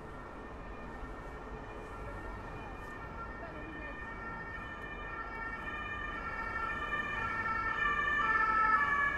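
Emergency vehicle siren alternating between two pitches, growing steadily louder as it approaches, loudest near the end, over the low hum of street traffic.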